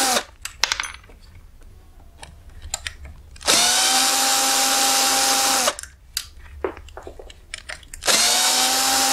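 Cordless drill-driver backing out slotted screws from a Buran snowmobile suspension wheel. Its motor whine stops just after the start, runs steadily again for about two seconds in the middle, and starts once more near the end. Light metallic clicks and taps fill the pauses.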